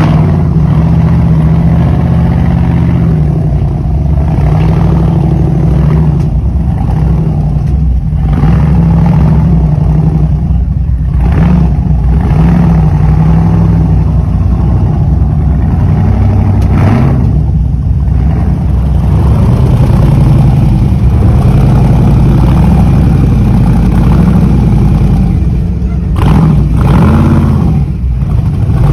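Rock-crawler buggy engine running under load, its revs rising and falling as it crawls over boulders.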